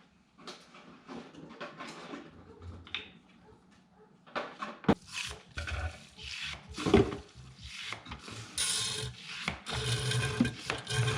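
Hand work at a car's radiator drain: irregular scraping and rubbing of tools and plastic parts, with a few sharp knocks about five and seven seconds in and a brief hiss near nine seconds.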